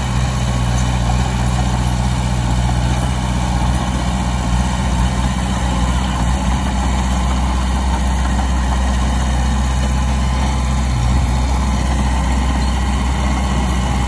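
Heavy earthmoving machine's diesel engine running steadily at a low, even pitch.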